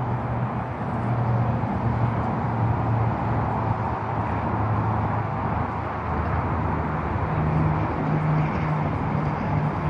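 Steady low hum of vehicle engines running, over a constant outdoor rumble. The hum's pitch steps up slightly about seven seconds in.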